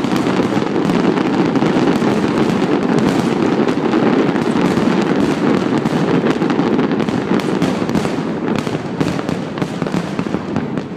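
Fireworks display: a dense, continuous din of shell bursts, with many sharp bangs and cracks throughout.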